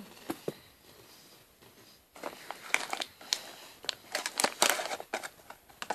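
Crinkly plastic snack wrapper being handled and scrunched, starting about two seconds in as a run of dense, irregular crackles.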